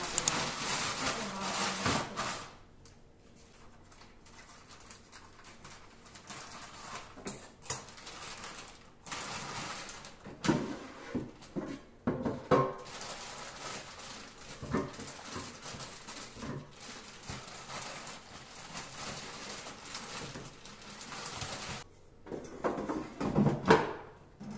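A plastic bag of frozen potato wedges crinkling for about two seconds. Then come scattered clicks and knocks as the pull-out basket drawer of a Tefal Easy Fry & Grill air fryer is handled. Near the end the drawer is pushed shut with the loudest knock.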